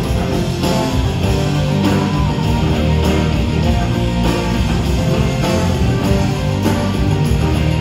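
Live rock band playing an instrumental passage: strummed guitars over bass and drums, with a steady beat.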